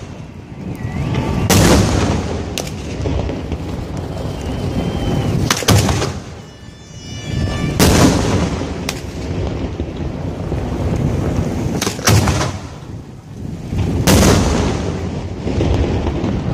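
Fireworks going off at close range: about seven sharp, loud bangs a second or several apart, with steady low noise between them.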